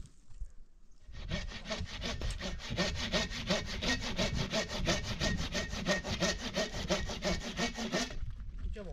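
Rapid, even sawing strokes, about five a second, starting about a second in and stopping shortly before the end.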